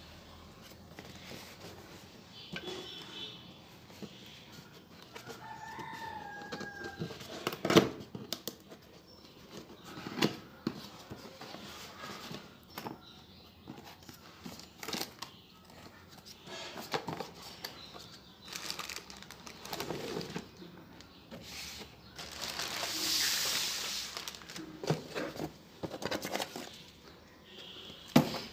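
A cardboard box being opened by hand: flaps and a cardboard insert bumped, scraped and pulled out, with scattered sharp knocks, the loudest about eight seconds in. About three quarters of the way through comes a longer rustle of the plastic bag around the steam iron.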